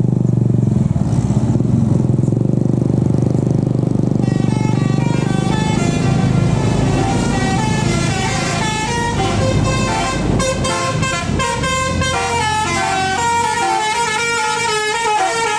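A bus engine runs for the first few seconds. About four seconds in, the bus's telolet basuri musical horn starts playing a tune of quick stepped notes, which goes on to the end.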